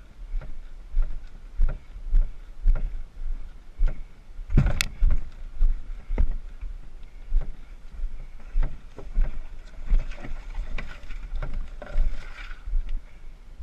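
Walking footfalls of someone carrying an overturned canoe along a rocky trail, with the hollow hull knocking in time, about two steps a second. A sharp knock comes a little before five seconds in, and near the end leafy brush rustles against the canoe.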